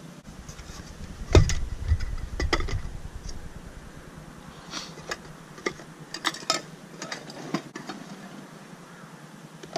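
Camping kitchen gear being handled and packed: scattered small clicks and knocks as items go into a mesh bag and a nylon dry bag, with a dull knock and low rumble about a second and a half in.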